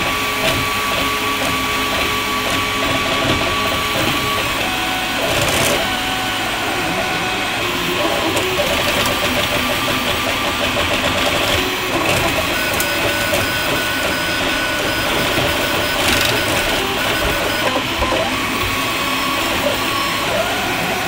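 Atomic U300 3D printer running, its stepper motors whining and whirring as the print head moves, the motor tones switching pitch every second or so with each change of move.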